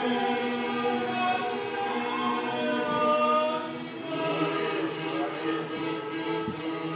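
Church choir of many voices singing together, with long held notes.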